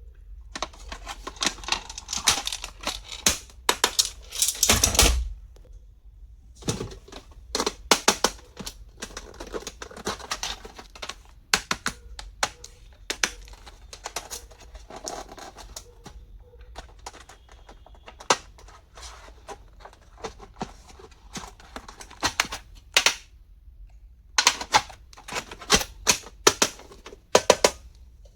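Plastic stationery being handled and unpacked: irregular clicks, taps and light knocks, with a few short scraping or rustling passages and a soft thump about five seconds in.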